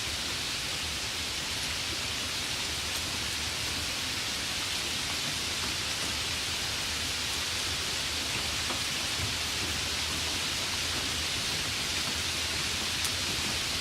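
Steady light rain falling, an even hiss with occasional faint drop ticks.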